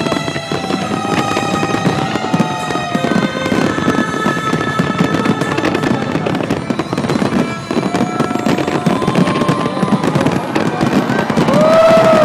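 Fireworks display going off continuously: a dense run of rapid bangs and crackling with no real pause.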